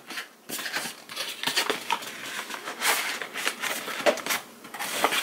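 Cardboard product box being cut open with a knife and handled: irregular scraping, rustling and tearing of cardboard and packaging.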